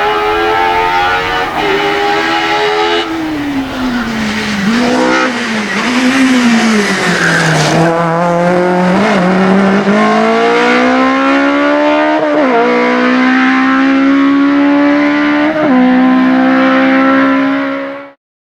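Ford Escort BDA Mk2's naturally aspirated Cosworth BDA four-cylinder racing engine under hard driving. The revs drop with quick blips about four to six seconds in, then climb with sharp upshifts near twelve and sixteen seconds, holding high revs until the sound cuts off suddenly.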